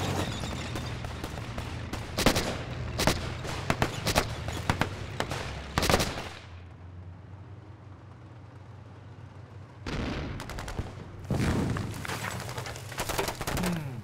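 Gunfire on a firing range, single shots and bursts, in two runs: from about two to six seconds in and again from about ten seconds in. For the first six seconds a steady low tank rumble runs under the shots and then stops.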